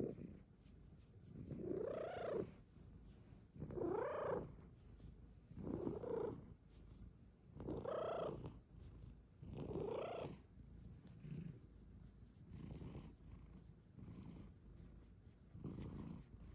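Silver Bengal cat purring while being stroked, the purr swelling and fading with each breath about every two seconds, growing fainter after about eleven seconds.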